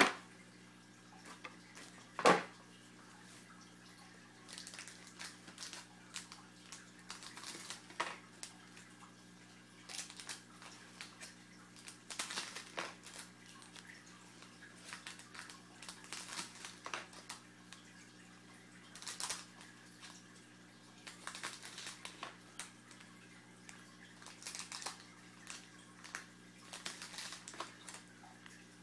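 Trading card packs being opened and cards handled: scattered light rustling and clicks, with one sharper click about two seconds in. A steady low electrical hum runs underneath.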